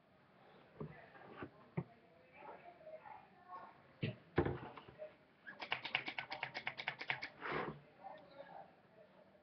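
Handling noise from a plastic bottle and hands working close to a webcam microphone: a few light knocks, two louder thuds about four seconds in, then a quick run of about ten clicks a second for nearly two seconds.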